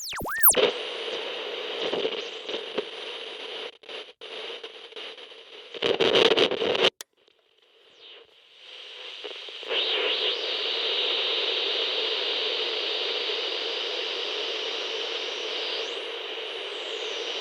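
Radio being tuned between stations: a short whistling glide at the very start, then a hiss of static. The static cuts out briefly near four seconds, flares louder around six seconds, drops to near silence for about a second and a half, then comes back and holds steady.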